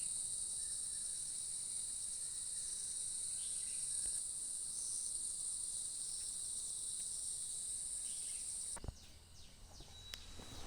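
A steady, high-pitched chorus of insects such as crickets or cicadas, which cuts off abruptly about nine seconds in. It is followed by a few faint clicks.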